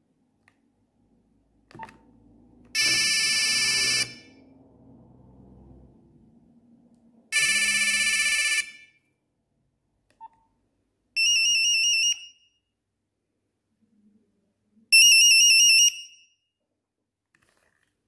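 Nokia 3310 playing ringtone previews through its small built-in speaker as the ringing-tone list is scrolled: four short electronic rings of about a second each. The first two are a dense buzzy ring, and the last two a fast warble between two high pitches. A single short keypad beep falls between them.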